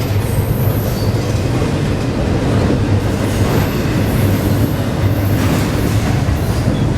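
Freight train cars rolling past close by: a steady rumble of wheels on rail, with a faint high wheel squeal near the start and again about halfway through.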